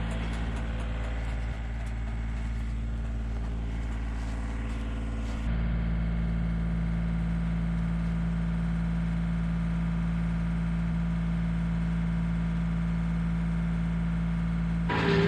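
John Deere tractor engine running steadily, with a light rapid ticking over it for the first few seconds. About five seconds in the engine hum turns a little louder and steadier.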